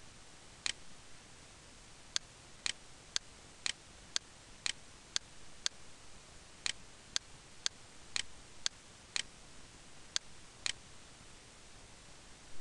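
A run of sharp single clicks from someone working a computer, mostly about two a second with a couple of short pauses, stopping about two seconds before the end.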